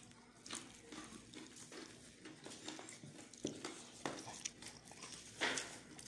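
Faint, scattered rustles and clicks of gloved hands picking food off a plastic-covered table while people eat a boodle fight by hand, with a couple of louder ones in the second half.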